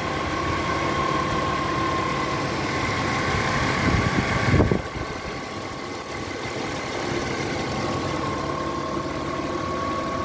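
Audi A6 C5 2.4 petrol V6 idling with a steady hum and a whine-like tone running over the engine note, a hum that appeared after the alternator was repaired. The sound swells about four seconds in and drops back abruptly just before the five-second mark.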